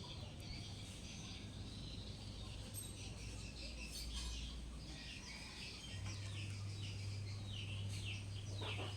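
Kutilang emas bulbul chirping: a quick, continuous run of short, high, downward-sliding chirps. A steady low hum comes in about six seconds in.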